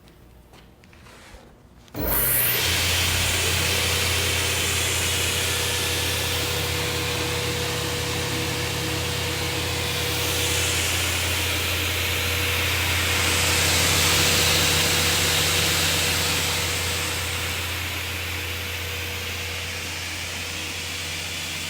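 Altendorf F-45 sliding table saw, 7.5 HP main motor, switched on abruptly about two seconds in and running with a steady hum, sawing through wood. The noise swells somewhat in the middle.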